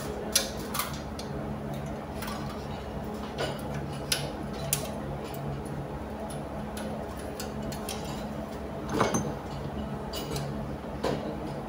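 Irregular small metallic clicks and taps of hand tools and wires being worked at a fire suppression control box, over a steady low hum.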